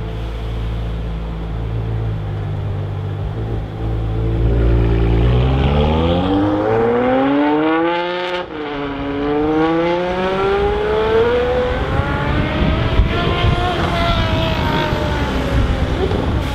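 Ferrari 599 GTO's V12 engine accelerating hard and loud. After about five seconds of a steady low engine note, the revs climb steeply, drop once in an upshift about halfway through, then climb again and hold high until the sound cuts off.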